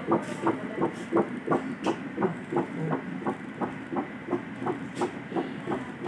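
Pulsed-wave Doppler audio of a fetal heartbeat from a Voluson P8 ultrasound machine: a steady, rapid, regular run of whooshing beats, about three a second, from a fetus of about 10 weeks.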